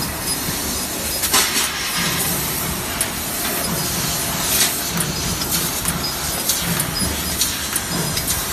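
A 1000 W laser cutting machine at work: a steady hiss with irregular sharp cracks and pops, and a low hum that comes and goes every second or so.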